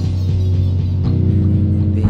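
Experimental electronic music: a dense, steady low drone of held tones.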